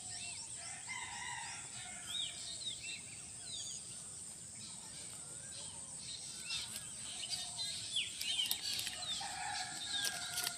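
Birds chirping and calling in many short notes over a steady high insect drone.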